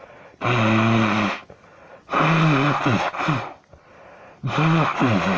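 A person sneezing three times in quick succession: loud voiced sneezes about a second long each, with a noisy rush of air, nearly two seconds apart.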